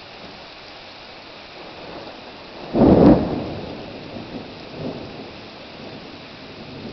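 Steady heavy rain falling on pavement, with a sudden loud thunderclap about three seconds in that rumbles away over the next second or so.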